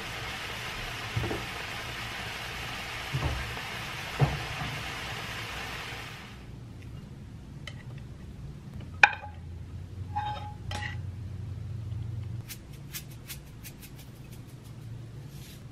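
Bean sprouts, egg and tofu sizzling in a frying pan while being stirred with chopsticks, which knock against the pan three times. After about six seconds the hiss cuts off. The food is then scraped from the pan into a ceramic dish with one sharp clink and some scraping, and near the end sesame seeds are sprinkled on with a quick run of small clicks.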